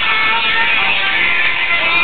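Moroccan Andalusian (tarab andalusi) ensemble music played live: a violin with plucked string instruments.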